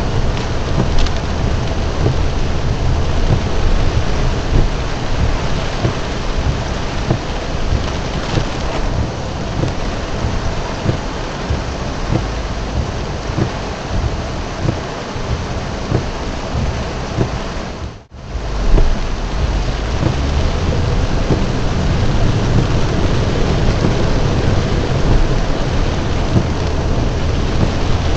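Heavy storm rain drumming on a car, heard from inside, with deep thunder rumbling underneath. The sound cuts out for a split second about two-thirds of the way through.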